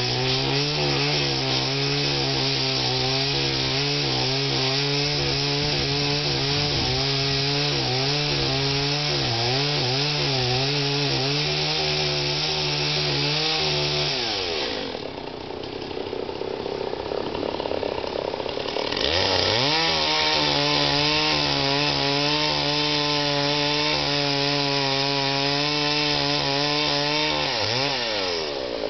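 Two-stroke chainsaw cutting into a standing tree trunk at full throttle, the engine note wavering under load. About halfway through it drops to idle for a few seconds, then revs up and cuts again before falling back to idle near the end.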